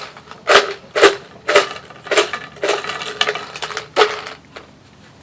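Hammer blows, about seven sharp strikes roughly half a second apart with a high metallic ring, typical of driving a nail into decking; they stop a little before the end.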